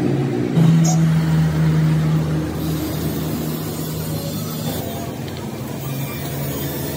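A motor vehicle engine running with a steady drone; it steps up in pitch about half a second in, then eases down and gradually fades.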